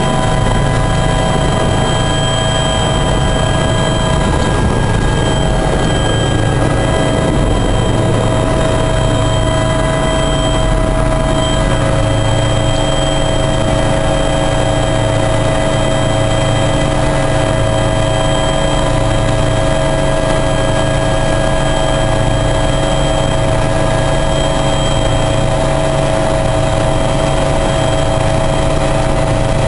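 Helicopter turbine and rotor noise heard inside the cabin during the takeoff run: a steady whine with a low, regularly pulsing throb beneath it. One of the whine tones rises a little in pitch over the first several seconds.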